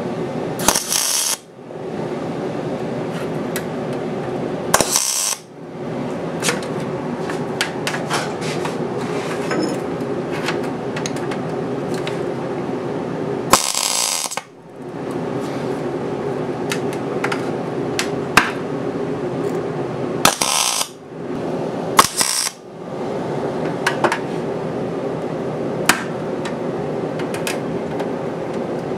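MIG welder tacking and plug-welding a sheet-metal belt guard, the arc crackling steadily with scattered spatter pops. It stops and restarts in several short pauses between welds.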